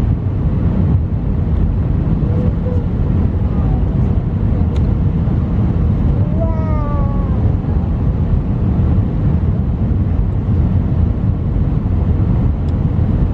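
Steady cabin roar of an Airbus A319 on approach, heard from a seat over the wing: engine noise and rushing airflow with the flaps extended. About six and a half seconds in, a brief high whine falls in pitch.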